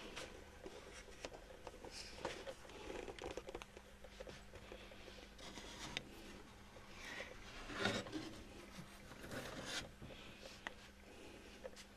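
Faint handling noise: scattered rustles, scrapes and a few light clicks, the loudest cluster about eight seconds in, over a steady low hum.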